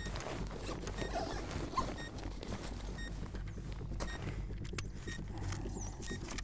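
Paper and clothing rustling and clicking as a small booklet is handled and its pages opened, over a steady low hum. A faint short electronic beep sounds about once a second from the bomb's timer.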